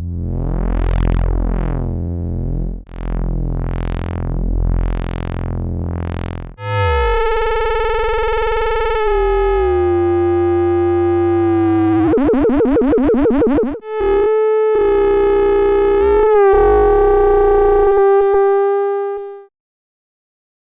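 Modular synthesizer note played through a CubuSynth Dual CS-20 MS-20-style filter: a low buzzy tone whose filter cutoff sweeps open and shut four times. Then, with the resonance turned up high, a loud singing tone rises out of it, sliding in pitch and wobbling rapidly for a couple of seconds, before cutting off near the end.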